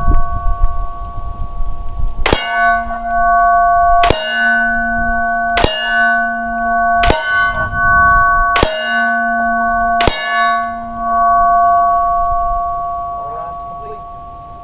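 Six .45 ACP shots from a Glock 21 pistol, evenly spaced about a second and a half apart. Each shot is followed by a metal target ringing with a steady clang, which fades away after the last shot.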